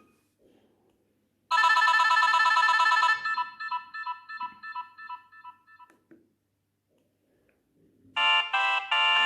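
Nokia 6030 ringtones. About a second and a half in, a short, rapidly pulsing electronic chime plays and then dies away in fading repeats over about three seconds. Near the end, after a short gap, the next ringtone starts with a few short stabs and then a held chord.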